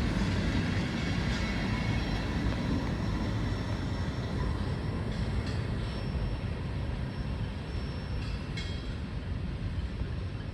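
Freight train's rear cars rolling by on the rails, a steady rumble of steel wheels that slowly fades as the end of the train moves away.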